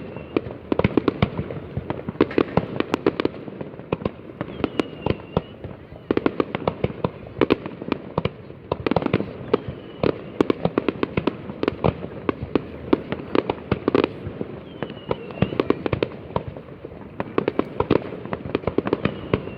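Fireworks going off in a dense, continuous run of sharp bangs and crackles, several a second.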